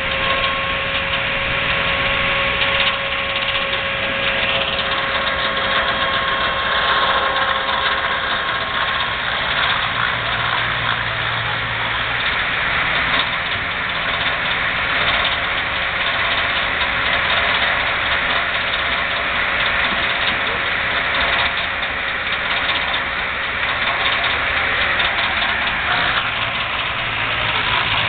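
An engine running steadily, with a faint steady whine over it that fades out about a third of the way through.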